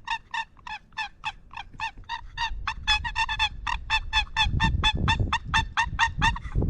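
Hand-run turkey box call sounding a long series of turkey yelps, about four a second, with a quicker cluster of notes about three seconds in. A low rumble runs under the later part.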